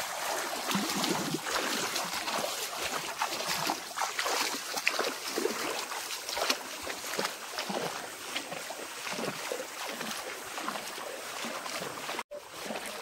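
Feet wading through a shallow stream: irregular splashing and sloshing of water around the legs with each step, over the running water.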